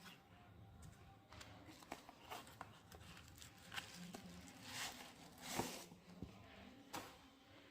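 Faint handling noises of packaging being opened: scattered light clicks and short rustles, the loudest rustle about five to six seconds in.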